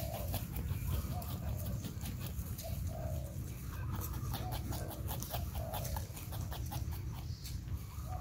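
Porcupine snuffling and giving short low grunts as it sniffs and forages, about one a second, with light crackling of dry leaves over a steady low background rumble.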